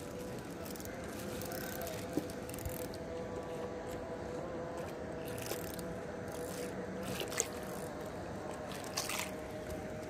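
Handling noise in a small boat: the camera rubbing against clothing and gear rustling, with scattered sharp clicks and scrapes over a faint steady hum.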